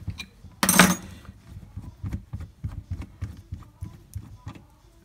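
Spanner and steel nose assembly of a Gesipa Pro cordless rivet gun being worked loose over a steel bench: one loud half-second metallic rattle about a second in, then a run of light metal clicks and knocks as the 15 mm nose assembly is unscrewed by hand.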